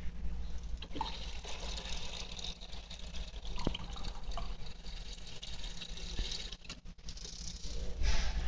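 Water from a drinking-water faucet pouring into a plastic cup and filling it, over a low steady hum.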